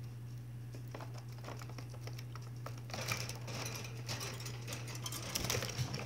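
Budgerigar pecking and cracking seed in a plastic feeder cup: a quick run of small dry clicks, sparse at first and denser in the second half.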